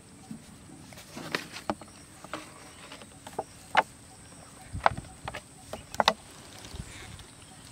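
Scattered sharp clicks and knocks of plastic containers being handled: a plastic water jar set down and a plastic bottle gripped and handled, about half a dozen separate clicks.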